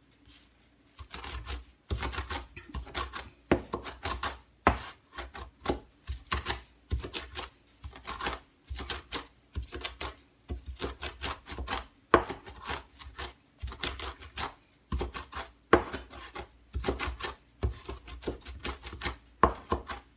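Mezzaluna mincing knife chopping leafy greens on a plastic cutting board: a rapid, uneven clatter of the curved blade striking the board through the leaves, in runs broken by a short pause near the start and another about two-thirds of the way through. The greens are being minced very fine.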